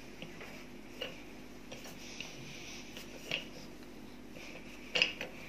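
Faint, scattered clicks and soft taps of a wooden rolling pin working puff pastry dough on a floured stone counter, with a sharper knock about five seconds in. A low steady hum lies under it.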